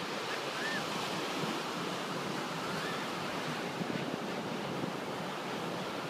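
Ocean surf breaking and washing up onto a sandy beach: a steady rushing of waves.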